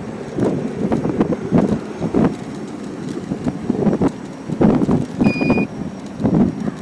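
Wind buffeting the microphone in uneven gusts on a moving electric ride, with scattered rattling clicks. A single short electronic beep sounds about five seconds in.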